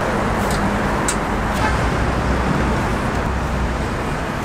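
Steady street traffic noise with a low rumble, and three short sharp clicks in the first two seconds.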